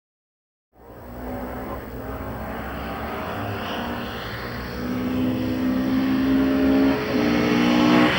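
Ford Escort RS 2000 rally car approaching at full throttle. Its engine fades in about a second in and grows steadily louder, the note held at high revs, with a brief dip near the end.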